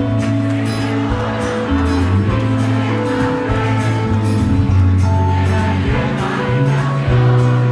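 Live rock band playing an instrumental passage: guitars, bass, drums and keyboards, with a steady drum beat under sustained bass notes.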